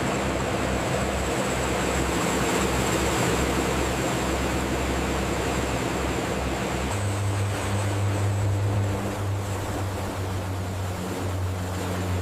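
Turboprop aircraft engines running: a steady rushing noise with a low hum and a thin high whine. About seven seconds in, the hum shifts to a deeper, stronger tone.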